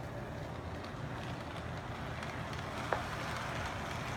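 Lionel O-gauge remote-control model train running on its track, a steady low rumble, with a single sharp click about three seconds in.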